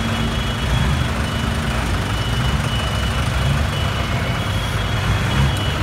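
Diesel farm tractors running in a slow procession, a steady low engine rumble from several machines. A thin high tone comes and goes over it.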